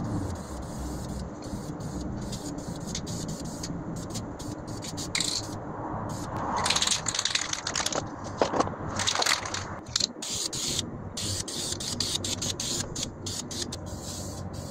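Aerosol can of rust-barrier paint hissing in short bursts, several times over, with a few sharp clicks and a steady low hum underneath.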